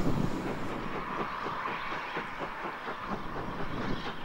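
Steam locomotive No. 3 Twizell and its train running at a distance, with a quick regular beat of about four strokes a second and a faint steady whine over it.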